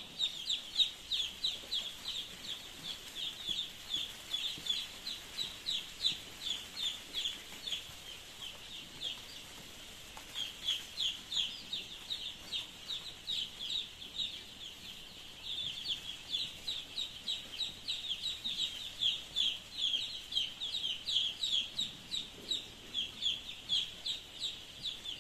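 A large flock of week-old cockerel chicks peeping: a dense chorus of short, high peeps, each dropping slightly in pitch, thinning out briefly once or twice.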